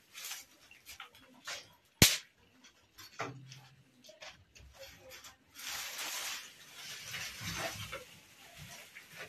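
Dry brushwood twigs snapping and crackling as they are pushed into a tandır pit oven, with one sharp crack about two seconds in. This is followed by a few seconds of rustling from a plastic sack against the twigs.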